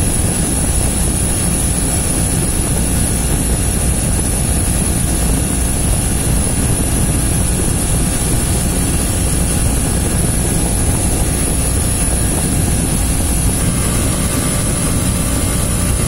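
Refrigeration condensing unit running: the scroll compressor and its condenser fan make a loud, steady rushing noise that starts abruptly. The compressor has just been topped up with oil and is running so its oil level shows in the sight glass.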